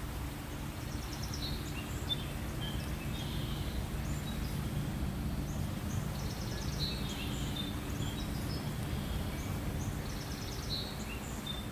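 Outdoor ambience: a steady low rumble of background noise, with small birds chirping in short phrases now and then.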